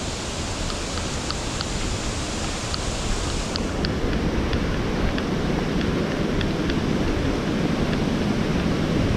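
Waterfall water rushing in a steady, even noise that grows gradually louder.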